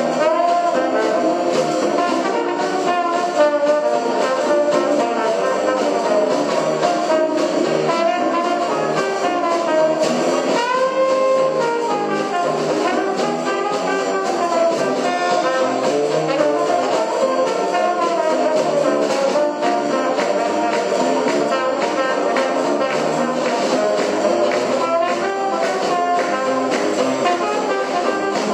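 Background music: jazz led by brass instruments, with trombone and trumpet, playing continuously at a steady level.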